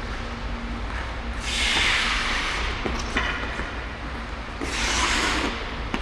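Ice skate blades scraping across the ice twice, each rasping scrape about a second long, with a few light knocks in between.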